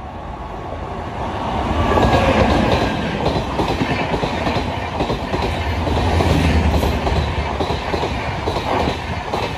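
Express train hauled by a WAP-5 electric locomotive passing at full speed. The noise builds over the first two seconds as the locomotive arrives, then the passenger coaches rush past with a steady clickety-clack of wheels over the rail joints.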